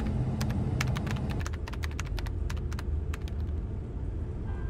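Computer-keyboard typing sound, a run of quick, irregular key clicks, over the low rumble of a car driving in traffic.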